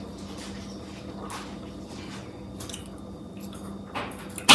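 Soft kitchen handling noises over a steady low hum, with one short, sharp sound near the end, possibly a mouth smack as batter is tasted off a finger.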